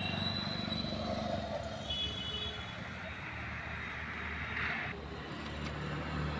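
Steady low engine hum under general outdoor background noise, with a short hiss about three quarters of the way through.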